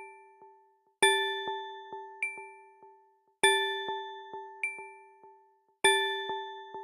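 Android Safety app's Safety Check alert sound: a bell-like ding with soft ticks following it about every half second and a higher ding partway through, the pattern restarting about every two and a half seconds, three times.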